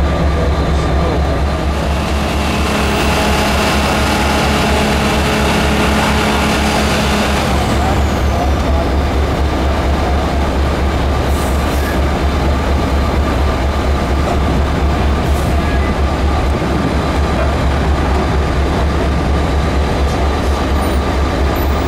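Heavy diesel engine of a rail boom crane running steadily with a deep, even throb. Higher steady hums ride over it for the first seven seconds or so, then drop away.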